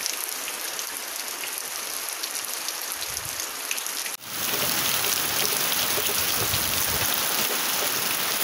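Steady rain falling and dripping off a roof edge. About four seconds in the sound breaks off for an instant and comes back louder, as a heavier downpour.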